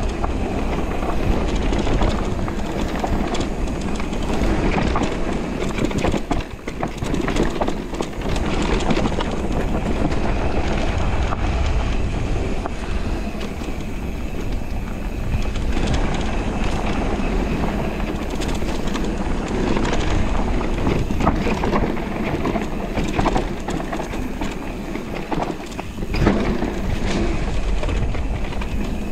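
Radon Deft 8.0 electric mountain bike riding down a dirt forest singletrack: tyres rumbling over dirt and leaves, with steady rattling and knocking from the bike over bumps. It eases briefly about six and a half seconds in.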